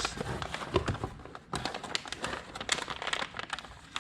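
Packaging crinkling and rustling with irregular small clicks and knocks as boxed engine parts are handled and unwrapped.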